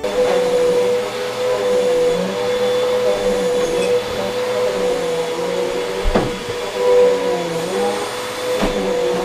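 Upright vacuum cleaner running over carpet, a steady rush of air with a constant motor whine. Two sharp knocks come near the end, about two and a half seconds apart.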